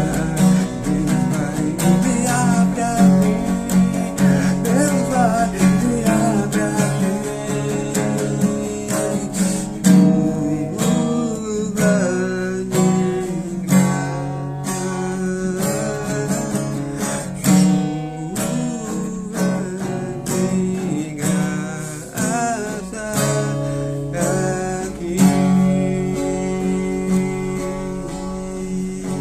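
Music led by a strummed acoustic guitar, playing on through the end of a gospel worship song.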